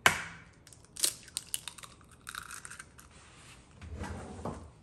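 Eggs being cracked into a mixing bowl: one sharp crack at the start, then smaller clicks and the crunch of shells being pulled apart.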